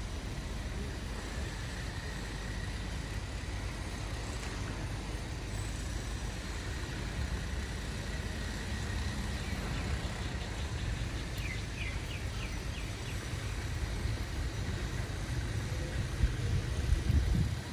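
Steady low rumble of road vehicles, swelling loudest shortly before the end. About twelve seconds in, a brief run of high chirps sounds over it.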